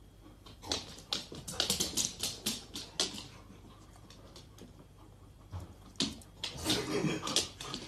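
Plastic cling wrap stretched across a doorway crinkling as huskies push against it, in two spells of crackling, the second with husky whines mixed in.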